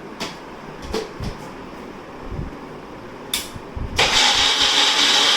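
Electric blender switched on about four seconds in and running steadily at full speed, grinding milk with soaked almonds and cashews into a paste. Before it, a few light clicks and knocks of the jar and lid being handled.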